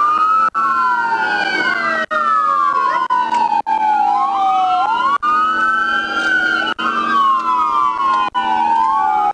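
Several police car sirens wailing at once, their slow rising and falling sweeps overlapping out of step. A steady low hum runs underneath, and the sound drops out for an instant every second or so.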